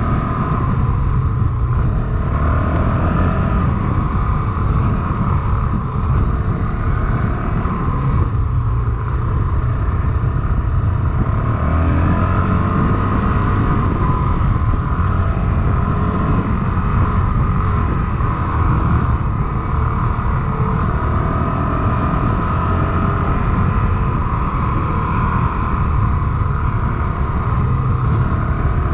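Honda CRF450RL's 450 cc single-cylinder four-stroke engine running steadily while the dirt bike is ridden, its pitch shifting a little with the throttle partway through.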